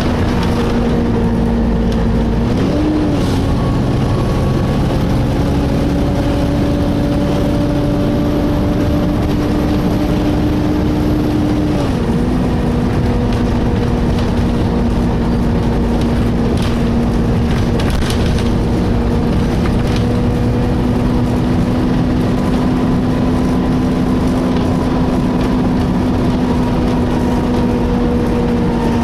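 Engine cooling fan of a Volvo B7TL double-decker bus whining steadily over the bus's low running and road rumble, heard from the lower deck. The whine steps up in pitch about three seconds in and drops back to its lower note about twelve seconds in.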